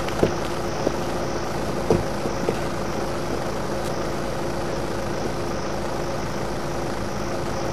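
A steady mechanical hum with a constant tone over a low rumble, and a couple of faint knocks in the first two seconds.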